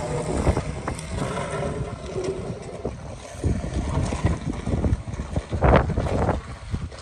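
Wind buffeting the microphone as an irregular, gusty low rumble, with scattered knocks and a louder thump near the end.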